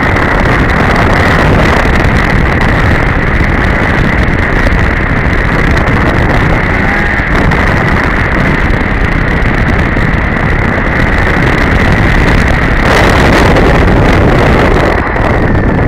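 2002 Polaris Edge two-stroke snowmobile running steadily on the trail, with wind buffeting the microphone. About thirteen seconds in, a louder rush of noise lasts a couple of seconds.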